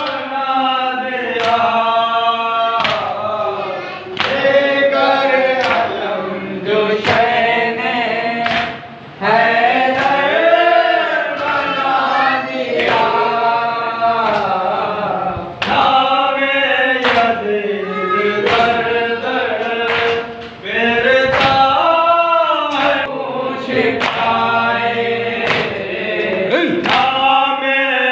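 A group of men chanting a Shia nauha (mourning lament) in unison, with sharp chest-beating (matam) slaps about once a second keeping the beat.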